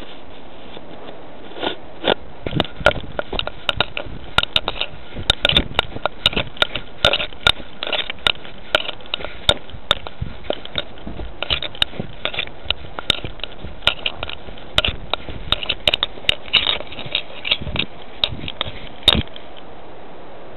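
Handling noise on a cat's collar camera: many irregular crackling clicks and scrapes, several a second, as the cat moves about with the lens against its fur and whiskers.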